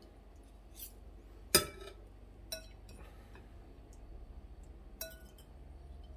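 China plates and a spoon clinking against each other as the dishes are handled. There are four clinks: the loudest, sharp and ringing, about a second and a half in, and fainter ones before and after it.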